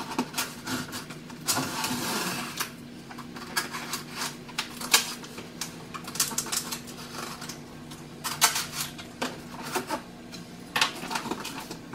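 A cardboard box being cut open and handled: a knife scraping through the packing tape about two seconds in, then a run of clicks, taps and rustles of cardboard and packing.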